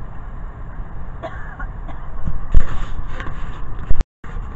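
Car cabin noise while driving: a steady low road-and-engine rumble, with a few knocks and thumps about halfway through and a sharp click near the end, after which the sound cuts out for a moment.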